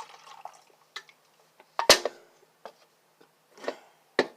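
Drinking sounds from a tea break: a few small wet clicks and gulps, with one sharp knock about two seconds in, the loudest sound, followed by a brief ring.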